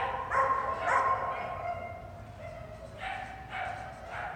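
A dog barking repeatedly and high-pitched while running an agility course: two loud barks about half a second apart in the first second, then three fainter barks spaced about half a second apart near the end.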